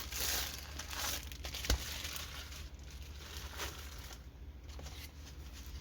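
Plastic packaging crinkling and rustling as a diamond painting kit is handled, with a single sharp click a little under two seconds in.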